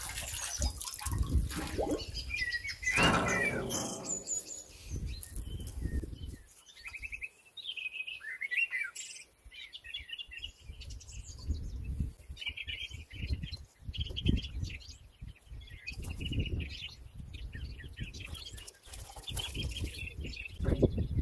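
Small birds chirping in many short, repeated calls, with a louder splash about three seconds in as the metal particulate filter is set down in the water-filled tub.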